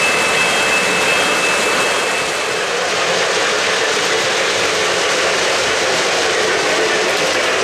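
O-gauge model trains running on three-rail track: a steady rolling noise of wheels on rails and motors, with a thin high whine that fades out about two seconds in.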